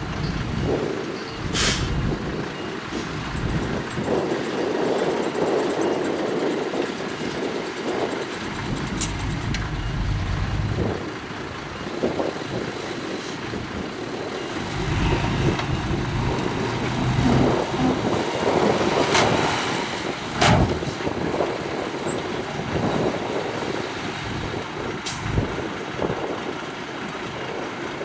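Dump truck's diesel engine running as its raised bed tips out a load of soil, with a few sharp knocks along the way.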